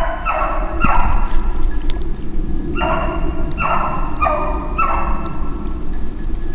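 Beagle baying while running a jumped rabbit: a string of steady-pitched bawls, each about half a second long, with a pause of about a second after the first three. A steady low rumble runs underneath.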